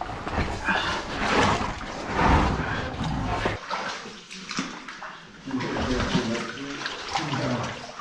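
Water sloshing and splashing as cavers crawl through a water-filled cave passage. It cuts off abruptly about three and a half seconds in, leaving quieter splashing and faint voices.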